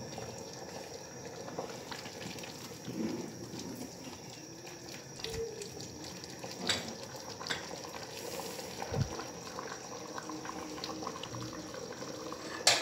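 Rice and peas boiling in water in a metal pot: a steady soft bubbling, with a few faint ticks and one sharper click near the end.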